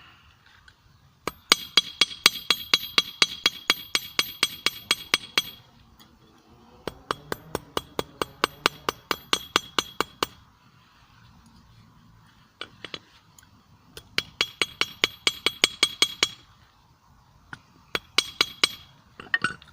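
Hammer striking a screw on a small 25 lb steel anvil, in runs of about four blows a second, each with a bright ringing clink, with short pauses between the runs. The screw is being hammered to bend it and work out kinks while forging it into a blade.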